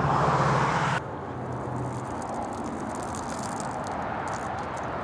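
Outdoor background noise with a steady low hum that cuts off abruptly about a second in, followed by quieter ambience with faint scattered rustling and light ticks.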